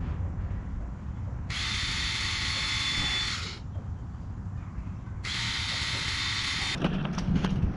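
Power drill running in two bursts of about two seconds each, boring holes through a cracked plastic front bumper lip. A scatter of clicks and knocks follows near the end.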